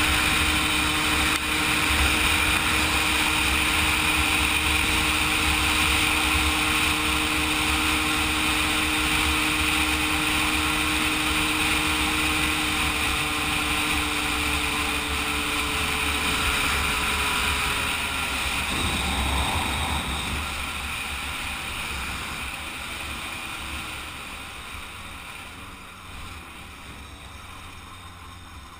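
Kreidler two-stroke moped engine running at a steady cruising pitch, with low wind rumble on the microphone. About twenty seconds in, the engine note shifts lower and then fades steadily.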